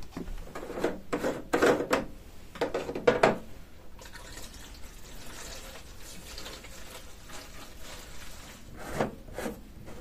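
Clatter and knocks of a plastic funnel and bottle being handled over the first few seconds. Then diesel fuel pours steadily from a plastic bottle through a funnel into a diesel heater's fuel tank, with two more knocks near the end as the filler cap goes back.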